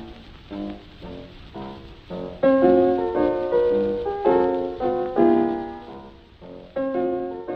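Piano music: spaced single notes at first, then fuller, louder chords from about two and a half seconds in.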